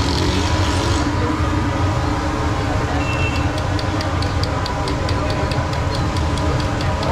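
Egg malpura batter frying in a large pan of hot oil over a gas burner: a steady low roar under a crackling sizzle. From about two seconds in, a quick even run of sharp pops, about three to four a second.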